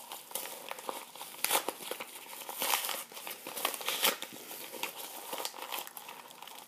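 Crinkly yellow plastic wrapping being handled and peeled apart: an irregular crinkling with several louder crackles.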